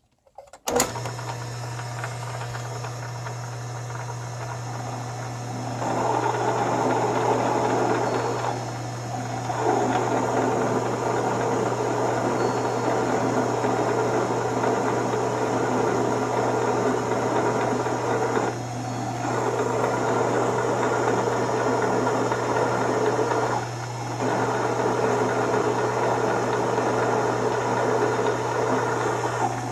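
Machine motor starts with a steady hum, and about six seconds in a 3/4-inch drill begins cutting into a cast iron ring blank with a steady, noisy cutting sound that eases off briefly several times.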